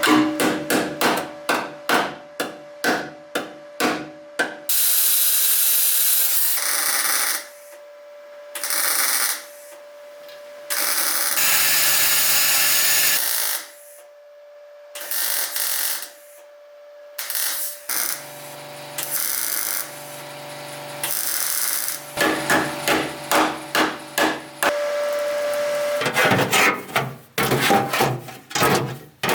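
Hand tool scraping and rubbing at bare metal in quick repeated strokes, about three a second, while paint and rust are stripped from a classic Mini's underside. The strokes alternate with bursts of a power tool running for a second or two, over a faint steady hum.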